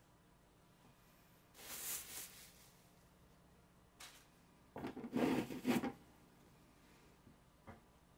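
Soft rustling and rubbing of a wipe during a baby squirrel monkey's diaper change: a short spell about two seconds in and a louder one around five seconds in, with a few faint ticks near the end.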